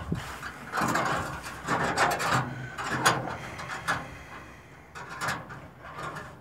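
Irregular rubbing and scraping noises in several short bursts, with a few sharp clicks.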